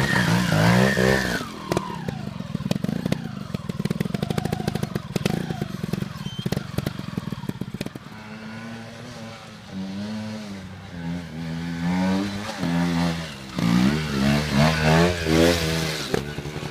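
Trial motorcycle engines running at low revs and being blipped with the throttle, the pitch rising and falling in short bursts. A run of rapid, crackling firing comes in the first half, and about halfway through the sound switches to a second bike.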